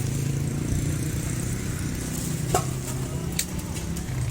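A steady, low engine-like hum, with a few sharp clicks about two and a half and three and a half seconds in.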